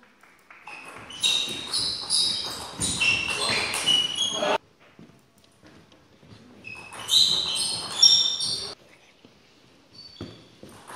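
Two table tennis rallies in a hall with a wooden floor: the ball clicks off the bats and table, and shoes squeak sharply on the floor. A longer rally runs for a few seconds, then comes a pause, then a shorter rally.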